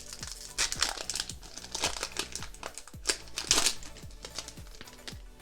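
Foil booster-pack wrapper crinkling and tearing as a Pokémon card pack is opened by hand, in bursts, loudest about three and a half seconds in. Background music with a steady beat plays underneath.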